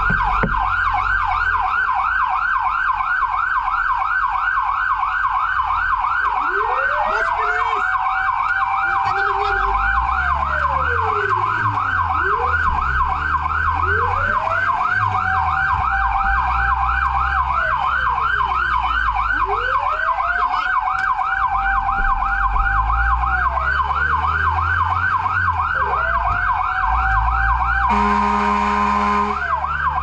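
Fire truck siren on a fast yelp, heard from inside the cab, with a second siren winding up, holding and falling about every six seconds. The truck's engine runs underneath, and a short horn blast sounds about two seconds before the end.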